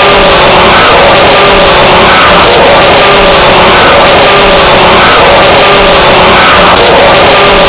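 A mouse squeak sound effect blown out with heavy distortion and clipped to full volume, a harsh constant noise with a short pitched figure that repeats about once a second.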